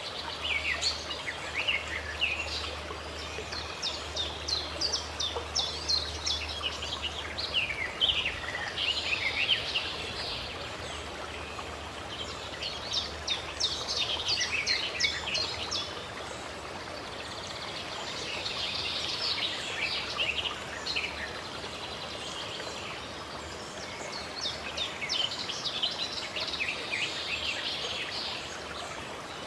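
Birds chirping and trilling in repeated quick bouts over a steady sound of running water.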